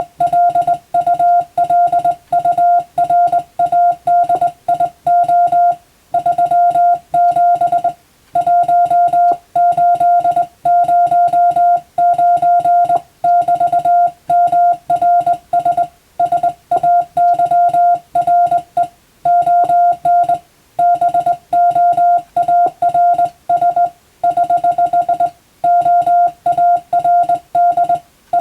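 Morse code sent by hand on a telegraph key: a single steady beep keyed on and off in dots and dashes at a brisk, even pace. Longer gaps between groups mark the spaces between words, as in radiotelegraph operator exam sending practice.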